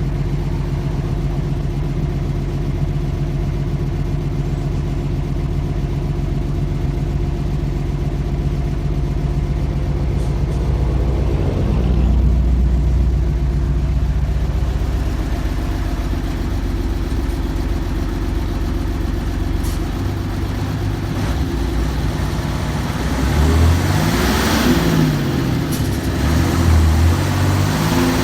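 Mercedes-Benz OF-1315 bus's diesel engine idling steadily, with the pitch shifting about eleven seconds in. Near the end it is revved up and down several times.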